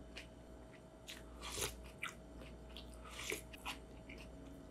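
Faint close-up chewing of a mouthful of bean-sprout bibimbap, heard as a handful of short, irregular crunches.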